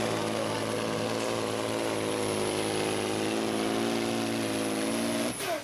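Volvo pulling truck's turbocharged diesel engine running hard under heavy load as it drags the weight sled, a steady, loud engine note whose pitch sags a little midway, then cuts off abruptly near the end.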